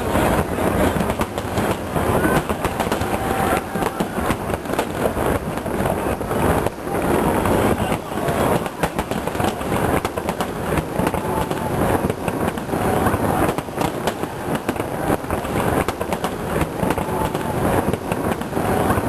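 Aerial fireworks shells bursting in quick succession, a continuous rumble of overlapping booms and crackles with no pause.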